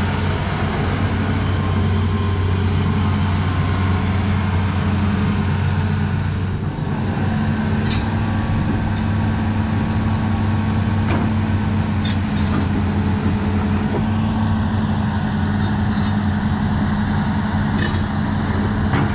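Hitachi ZX200LC-5G hydraulic excavator's diesel engine running steadily while the boom, arm and bucket are worked, with a brief dip in the engine note about seven seconds in. A few sharp clicks or knocks come through in the second half, and a brighter hiss joins near the end.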